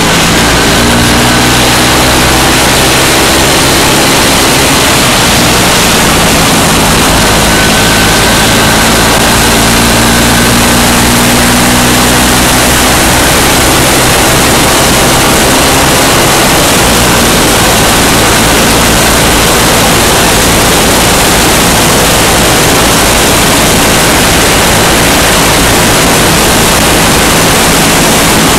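MZ motorcycle engine running at road speed under heavy wind rush on the bike-mounted microphone, its note rising gently over the first dozen seconds.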